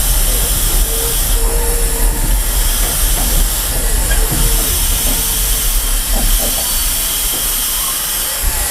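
Steam locomotive hissing steam over a steady low rumble, with a brief squeal just after a second in.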